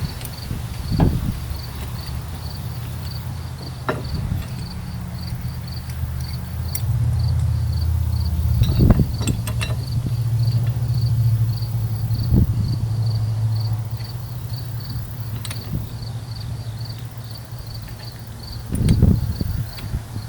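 Insects chirping in an even rhythm, about two or three chirps a second, over a steady low rumble that swells in the middle. A few separate knocks sound, the loudest about a second in, near the middle and near the end.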